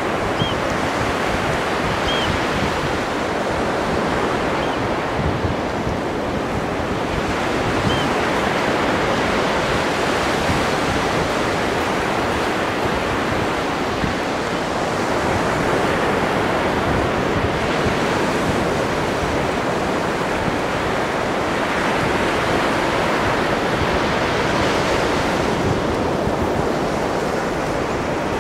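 Ocean surf washing steadily onto a beach, mixed with wind buffeting the microphone. A few short, faint high chirps come in the first eight seconds.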